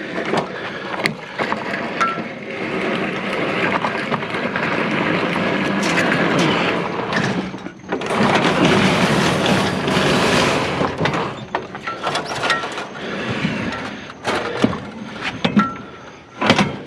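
A treadmill being handled and moved: scraping and rubbing with many sharp clattering knocks, loudest about halfway through.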